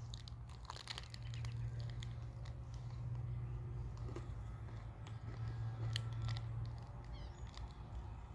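Someone chewing a crispy, crunchy peanut-butter candy bar, with small scattered crunching clicks, over a steady low hum that stops near the end.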